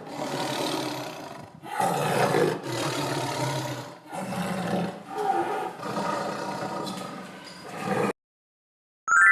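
Tiger roaring in several long, rough bouts with short breaks between them, stopping about eight seconds in. A short bright chime sounds right at the end.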